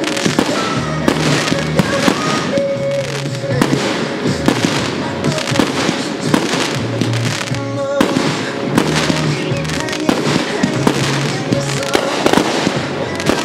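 Aerial firework shells launching from ground mortars and bursting in quick succession, many sharp reports one after another. Music with a steady bass line plays under them.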